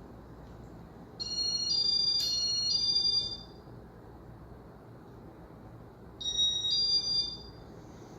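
Electronic tone melody: two short phrases of high, stepped beeping notes, the first about two seconds long and the second about a second, over a steady low whir.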